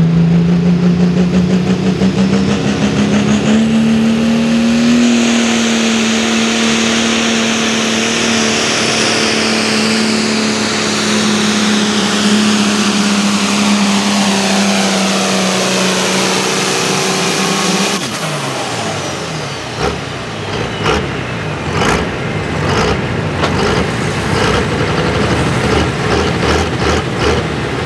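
A light pro stock pulling tractor's 466 cubic inch, 1600 horsepower engine at full throttle under load, dragging a 40,000 lb weight-transfer sled. The engine note climbs in pitch over the first few seconds, then holds high and sags slowly as the sled bears down. About eighteen seconds in the note drops off abruptly as the pull ends, followed by irregular sharp cracks and pops over a lower engine rumble.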